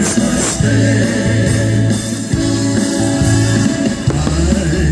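Band music with singing over a steady bass line.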